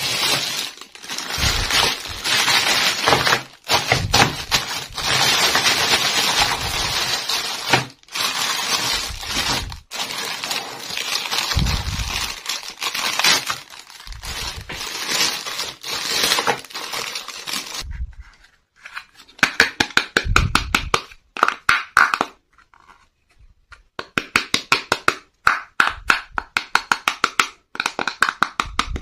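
Clear cellophane bag crinkling and crackling as it is handled around plastic toy pieces. About two-thirds of the way through this gives way to bursts of quick, rhythmic scraping as fingers rub over a hard plastic toy piece.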